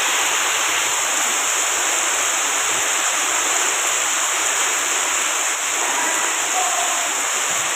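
Heavy rain pouring down onto a concrete roof and brick walls, a steady, even hiss of falling water with runoff streaming off the roof edge.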